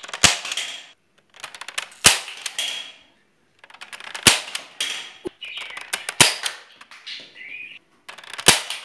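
Toy Nerf dart blaster fired repeatedly: about six sharp pops, roughly every one to two seconds, each followed by a brief clatter.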